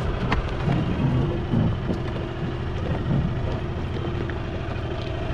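Small outboard motor on an inflatable dinghy running steadily at low speed, with wind on the microphone.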